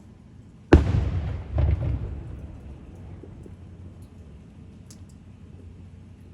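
Firework bursting with a sharp boom less than a second in, then a second boom about a second later, the rumble fading over the next second.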